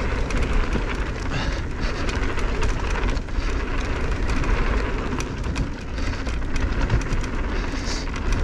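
Mountain bike riding downhill on a dirt trail: wind buffeting the GoPro's microphone, with tyre rumble and many small clicks and rattles from the bike over rough ground.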